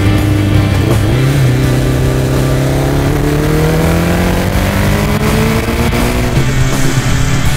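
Kawasaki Z1 900's air-cooled inline-four engine accelerating hard: after a gear change about a second in, the engine note rises steadily in pitch for several seconds, then levels off near the end.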